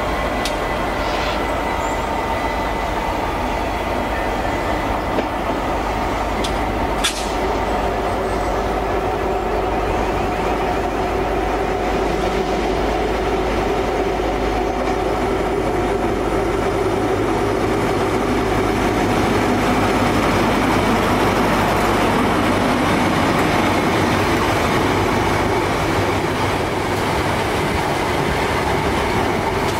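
Diesel High Speed Train (HST) test train running, its power-car engine giving a steady drone with a hum of held tones. A few sharp clicks come through, the sharpest about seven seconds in.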